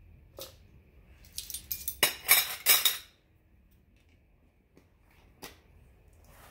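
Kitchen clinks and clatter of a spoon and a small vanilla bottle being handled and set down, with a click early, a busy run of sharp clatters about two to three seconds in, then a few light clicks.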